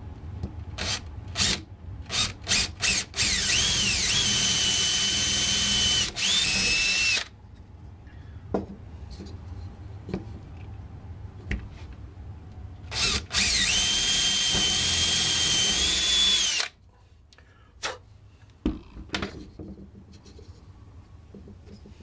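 Cordless drill with a twist bit drilling through a carved wooden decoy head. There are a few quick trigger pulls, then two runs of a few seconds each: the motor spins up into a steady high whine and stops.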